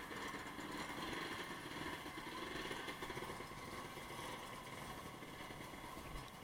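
A motorcycle engine running steadily.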